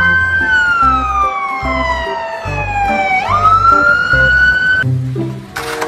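Emergency-vehicle siren wailing. Its tone falls slowly for about three seconds, sweeps quickly back up and holds, then cuts off about five seconds in. Background music with a steady beat runs underneath, and there is a brief hiss near the end.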